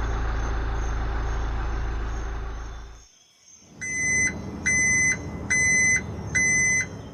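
A small motor runs steadily, then cuts off about three seconds in. A vehicle's reversing alarm then starts beeping, about once a second, five beeps, over a low engine rumble.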